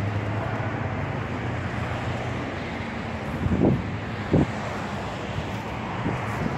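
Steady outdoor background noise with a low hum, and two short low bumps on the microphone about three and a half and four and a half seconds in.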